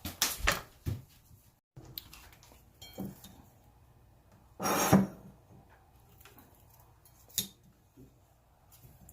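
Kitchen handling sounds: dishes and utensils being moved about, with a few quick knocks in the first second, a louder half-second clatter about five seconds in, and a single click later.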